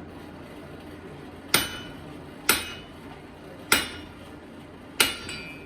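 Four hand-hammer blows on steel, about a second apart, each ringing briefly with a clear metallic tone.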